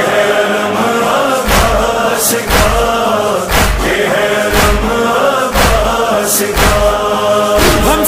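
Muharram devotional song between its sung verses: a chorus of voices chanting over a steady deep beat about once a second.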